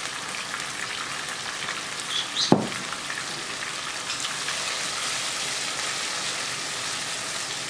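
Chopped chili, tomato and shrimp-paste mixture sizzling steadily in hot oil in a nonstick wok: the spice base for stir-fried water spinach being fried. A single sharp knock comes about two and a half seconds in, and a spatula stirs through the paste in the second half.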